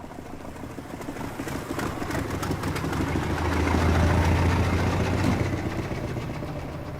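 Model T Ford engine running with quick rattles as the car approaches and passes. It grows louder to a peak about four seconds in, then fades away.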